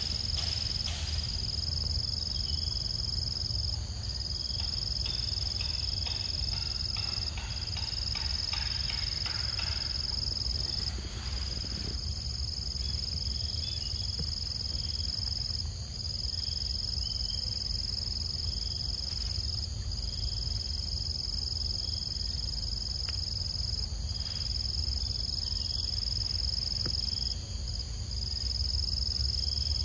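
Insect chorus: a steady high-pitched buzz that breaks off briefly every few seconds, over a low background rumble, with a few faint clicks and rustles about a quarter of the way in.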